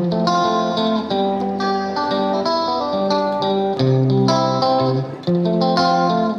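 Background music led by guitar, with notes changing steadily.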